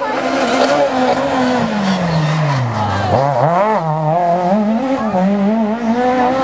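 A rally car's engine running hard on the stage, its pitch falling steadily over the first three seconds as the car slows into the bend, then climbing again in uneven steps as it accelerates away.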